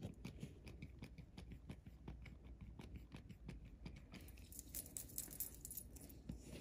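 Faint, repeated small clicks and airy puffs of a hand squeeze-bulb glitter sprayer dusting glitter, with a quick run of hissing puffs about four seconds in.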